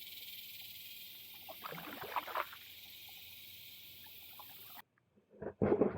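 Kayak on a shallow creek: a faint steady high hiss with a short water splash about two seconds in. After a brief cut near the end, louder sloshing and knocking close to the microphone.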